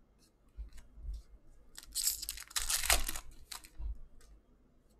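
Crinkly trading-card pack wrapper being torn and crumpled for about a second, a little under two seconds in, with a few light clicks of cards being handled before and after.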